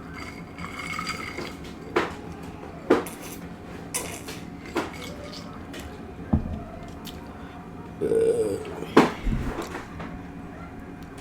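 Utensils clicking and scraping against a plate or bowl while eating, as a scatter of sharp taps. About eight seconds in, a short wavering voice-like sound stands out as the loudest moment.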